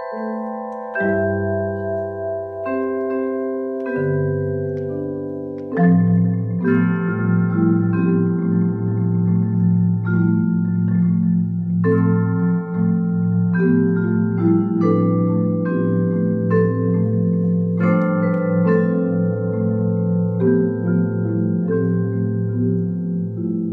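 Percussion ensemble of marimbas and other mallet instruments playing, with low notes held under higher struck notes. About six seconds in, the full ensemble comes in louder over a steady bass.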